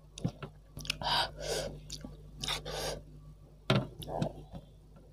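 A person sucking in two sharp breaths through the mouth while eating food in a very spicy broth, gasping at the chili heat. A few short clicks of the spoon and fork against the steel pot come between the breaths, the loudest near the end.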